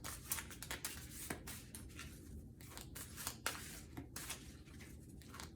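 A deck of oracle cards being shuffled by hand: a continuous run of faint, quick papery flicks and rustles.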